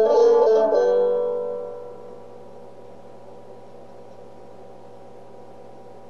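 Banjo background music: plucked notes that stop about a second in and ring away, leaving a faint steady held tone.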